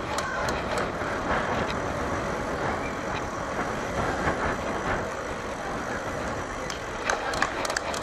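Steady rushing noise of a bicycle ride: wind on the microphone and tyres rolling on tarmac, with a few sharp clicks near the end.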